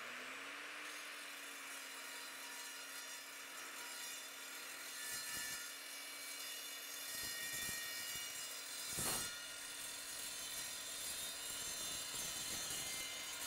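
Evolution 10-inch sliding miter saw with its 24-tooth blade, the motor finishing its run-up to speed and then running steadily as the blade cuts through 1.75-inch round steel tubing with a 1/8-inch wall. A brief louder burst comes about nine seconds in.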